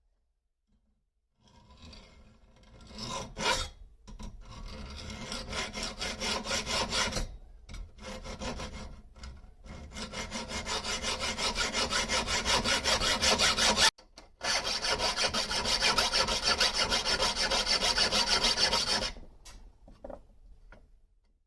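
Steel knife blank being abraded to shape: a rasping rub in quick, even strokes, about three a second, with a few short pauses.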